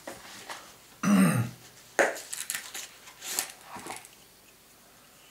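Cardboard parcel handled and turned on a tabletop, with scraping and rustling strokes from about two seconds in, as a knife is picked up to open it. A brief sound from the man's throat about a second in.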